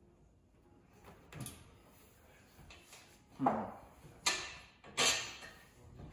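A few sharp knocks and clunks of hardware being handled while a large rear wing's upright bracket is fitted to a car's boot lid, the loudest about halfway through and two more close after it.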